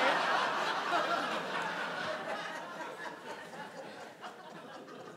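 Live audience laughing, loud at first and dying away gradually over a few seconds.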